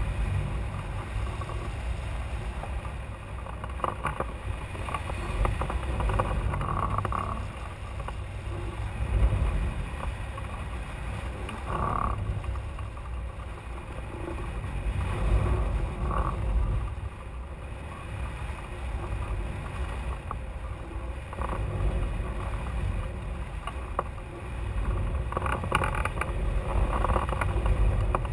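Airflow buffeting a glider-mounted camera's microphone in flight: a steady low rumble of wind that swells and eases, with brief higher rushes every few seconds.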